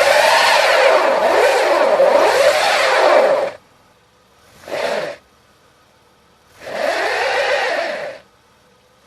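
Car engine of a stuck car revving in repeated rising-and-falling surges. It cuts off about three and a half seconds in, then comes back in a short burst near five seconds and a longer surge of about a second and a half near the end.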